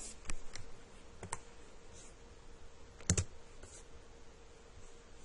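A few sharp clicks at a computer: light ones near the start and about a second in, then a louder double click about three seconds in, over a faint steady hum.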